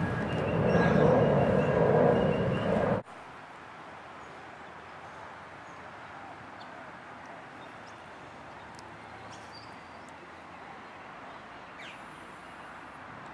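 Qantas twin-engine jet airliner passing low overhead, a loud rumble of engine noise that cuts off suddenly about three seconds in. After that, a quiet steady outdoor background with a few faint bird chirps.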